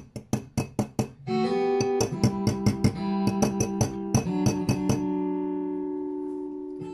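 Wire whisk clinking rapidly against a glass measuring cup, about five strokes a second, as flaxseed oil is mixed into thick quark cheese. About a second in, guitar music starts playing from an Echo smart speaker and carries on over the whisking, which stops about five seconds in.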